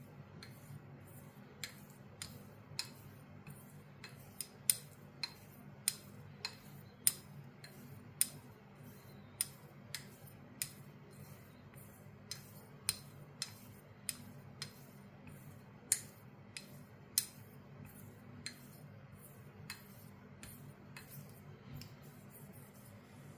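Sheffield straight razor being honed on a wet whetstone with slurry: light sharp clicks, a little more than one a second and slightly irregular, as the blade is stroked and flipped on its taped spine against the stone. A steady low hum lies underneath.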